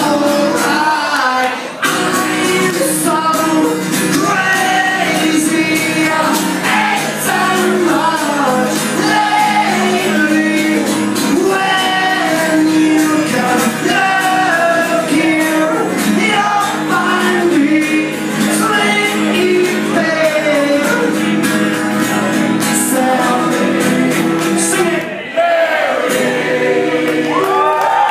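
A man singing with strong, shouted energy over a strummed acoustic guitar in a live solo acoustic rock performance, with brief breaks about two seconds in and again near the end.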